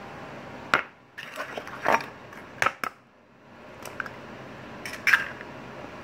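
Close handling noise from a hand working right at the phone microphone: a handful of sharp clicks and knocks with some scraping between them, the loudest near the start and about five seconds in.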